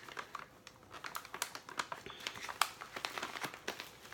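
Clear plastic zip bag crinkling as it is handled and set down, with irregular short crackles and clicks; the loose bath-bomb pieces inside shift with it.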